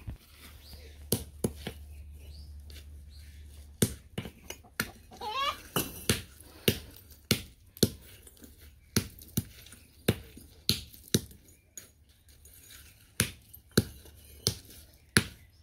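Hand hammer striking fired clay bricks to break them into chips, sharp cracks of hammer on brick. A few strikes in the first four seconds, then a quicker run of about two blows a second with short pauses.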